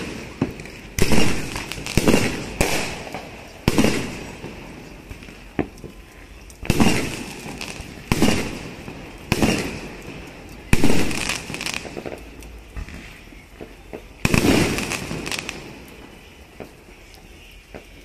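Aerial fireworks shells bursting: a string of a dozen or so sharp bangs at irregular intervals, each trailing off briefly, growing sparser and fainter in the last few seconds.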